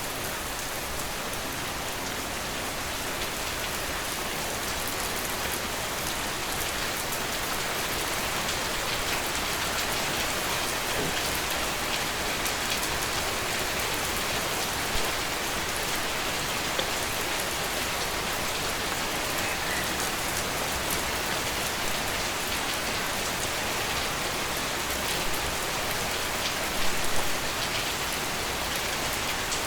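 Steady heavy rain falling and spattering on a surface, with a few slightly louder drop impacts about halfway through and near the end.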